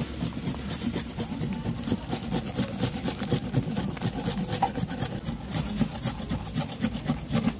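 Carrot rasped against a flat metal hand grater in repeated scratchy strokes, over a steady low hum.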